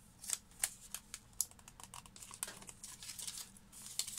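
Plastic wrap on a small pocket photo printer crinkling as fingers pick at it and turn the printer, in irregular sharp crackles and ticks.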